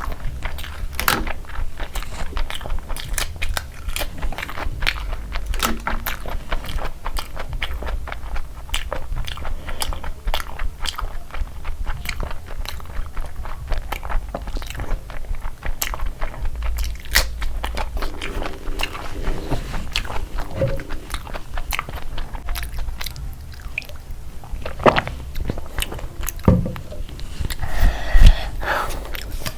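Close-miked eating sounds: food being bitten, crunched and chewed, with a steady run of small crunches and wet mouth clicks, and one louder knock near the end.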